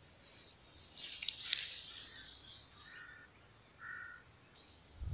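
A steady high insect drone, with a brief crackling rustle of handled leaves about a second in and two short bird calls near three and four seconds.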